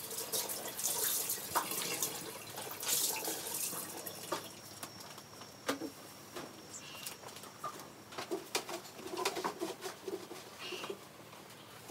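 Water running and splashing in spurts for the first few seconds, then scattered knocks and clicks.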